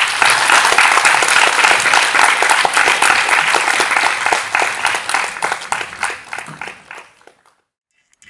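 Audience applauding, many people clapping at once; the applause thins out after about five seconds and stops by about seven and a half seconds.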